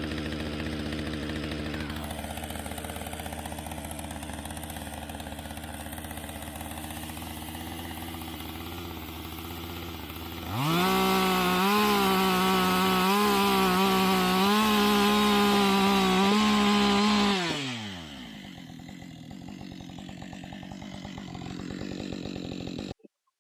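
Portable sawmill's gas engine running at idle, then revving up about ten seconds in. It runs at high speed for about seven seconds, pitch wavering a little as the blade takes an inch off a board, then winds down to idle.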